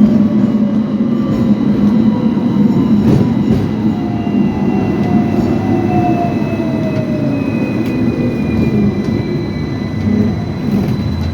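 Hong Kong tram's electric traction motors whining over a heavy rumble of wheels on rail, with a few sharp clicks. The whine falls slowly in pitch as the tram slows.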